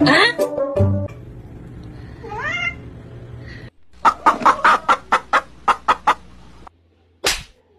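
Chickens clucking in a quick run of about ten sharp calls over two seconds. Before them, music with a rising slide stops about a second in, followed by a few short rising calls. One sharp sound comes near the end.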